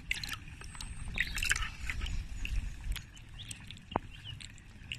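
Water sloshing and splashing in a plastic bucket as a hand scoops up a small carp, in short irregular bursts over a low rumble.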